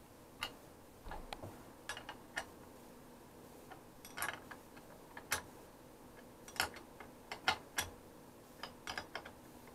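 Irregular light metallic clicks and knocks as a truck's steel clutch pedal arm is fitted onto its pivot in the pedal bracket and handled with a hand tool. The louder knocks come in the second half.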